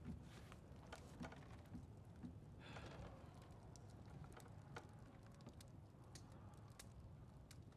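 Near silence: faint rustling and small scattered clicks of parchment scrolls being handled on a desk, with a soft swell of rustling about three seconds in, over a low room hum.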